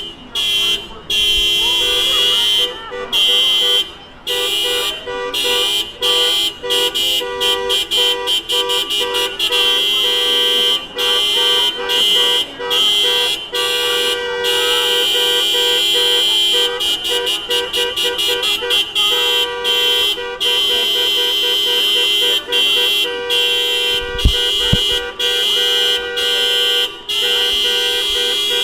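Car horn honking over and over, sometimes held for several seconds and sometimes tapped in quick runs of short honks. A couple of low thumps come about 24 seconds in.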